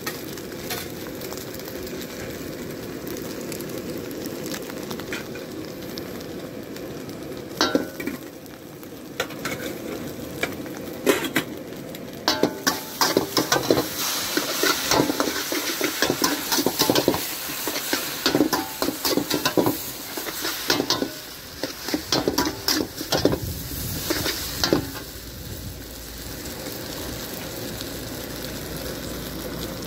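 Noodles sizzling in a large wok, with a steel spatula scraping and clanking against the wok as they are tossed and stirred; the clanking runs from about a quarter of the way in until near the end, with steady sizzling on its own before and after.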